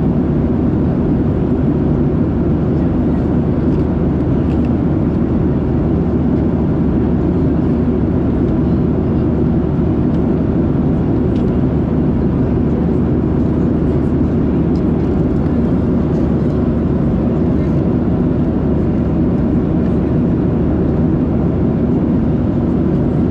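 Steady in-flight cabin noise of a Boeing 737-700: an even rumble of engines and airflow, unchanging throughout.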